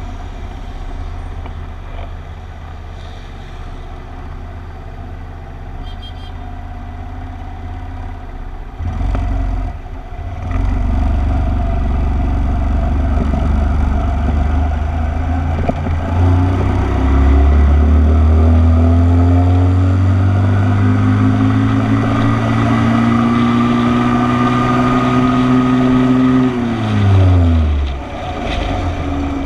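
Motorcycle engine running at low revs, then pulling away from about ten seconds in, its pitch climbing steadily as it accelerates, before falling sharply near the end as the throttle closes.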